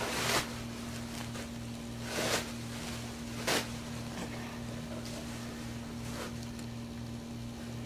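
Three short rustles of cloth as a newborn puppy is rubbed and handled in sheets and towels, over a steady low hum.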